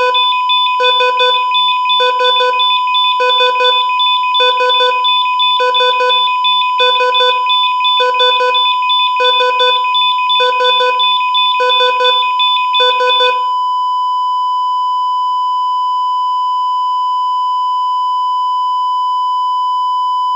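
Synthetic EKG heart-monitor sound. It beeps about once every 1.2 seconds over a steady tone, then the beeps stop about 13 seconds in, leaving one continuous flatline tone, the monitor's sign of no detected heartbeat.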